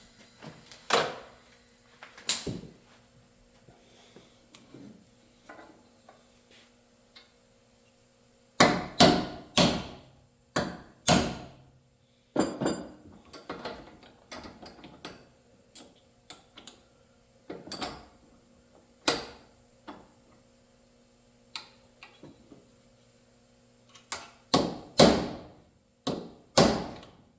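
Hammer striking a punch to drive the handle off an antique Arcade Crystal coffee grinder. The blows are sharp and come singly and in runs of about four heavy strikes, with lighter taps in between.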